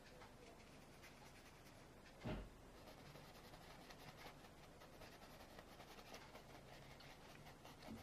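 Faint scratchy dabbing and rubbing of a small paintbrush on canvas, blending paint in short strokes, with one soft thump a little over two seconds in.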